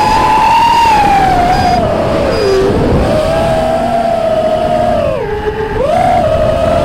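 FPV drone's electric motors and propellers whining, heard from the onboard camera, several close pitches rising and falling together with the throttle. The pitch sinks about two and a half seconds in, climbs back, then dips sharply again about five seconds in.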